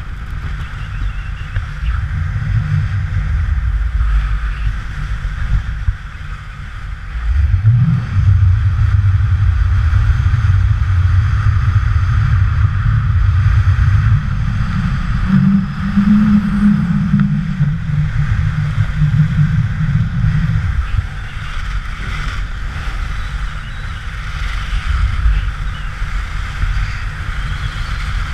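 Wind buffeting a pole-mounted action camera's microphone during a fast ski run, a heavy uneven rumble, with a steady hiss of skis sliding and carving on groomed snow. The rumble grows louder from about eight seconds in and drops back about twenty seconds in, as the speed rises and falls.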